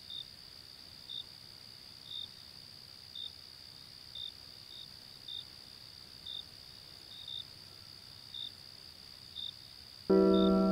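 Crickets at night: one continuous high-pitched trill, with a short chirp repeating about once a second. A sustained musical chord comes in about ten seconds in.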